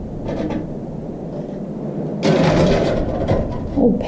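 Old metal objects being handled and scraped on a dusty wooden table, with a louder scraping clatter for about a second in the middle.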